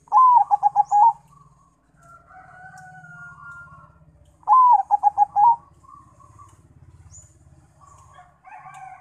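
A caged zebra dove (perkutut), a Bangkok × local cross, singing. It gives two phrases about four seconds apart, each a rising opening note followed by a quick run of about six short coos. Fainter calls of other birds fill the gaps.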